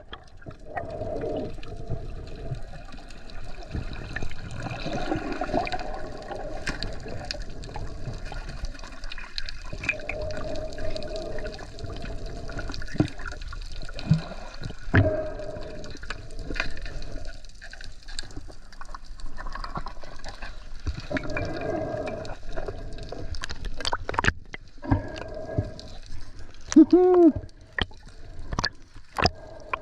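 Water heard underwater: muffled rushing and bubbling that comes and goes in waves, with scattered sharp clicks and knocks. Near the end comes a brief muffled pitched sound that rises and falls.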